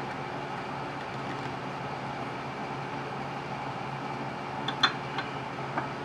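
Steady low background hum, with a few light clicks about five seconds in as metal pen-kit parts are handled and seated in a pen press.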